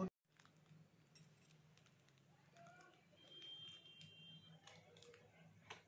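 Faint crinkling and small clicks of a foil sweet wrapper handled and chewed at by a baby, over quiet room tone.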